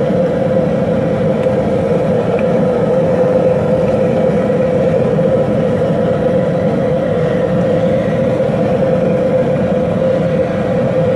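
Propane jet burner running steadily under a large pot of seasoning water at a full rolling boil, a constant rushing noise with a steady hum in it.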